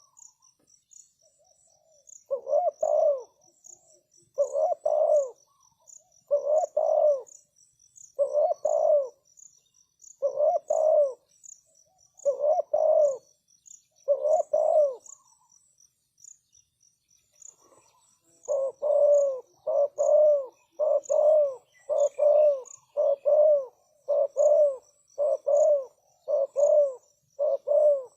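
Spotted dove cooing: a run of low, repeated coo phrases about two seconds apart, then after a pause of a few seconds the phrases come faster, about one a second. These are calls used to lure wild doves.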